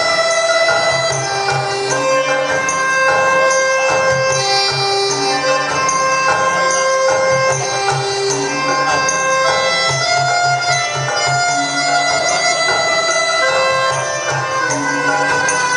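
Thai traditional dance music: a reedy wind melody of long held notes stepping up and down over a steady repeating drumbeat.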